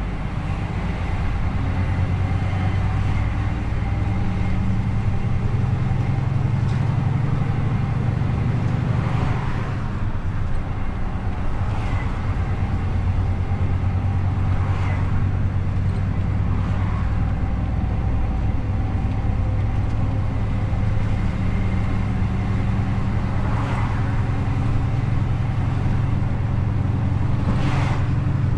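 DAF XF truck's diesel engine running steadily on the road, a low drone with tyre and road noise. A few brief swishes pass over it.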